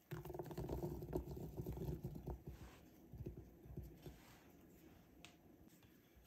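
Flour-dusted blueberries tipped from a small bowl, pattering into thick chocolate cake batter for about two and a half seconds, then faint scattered taps as they settle and are spread.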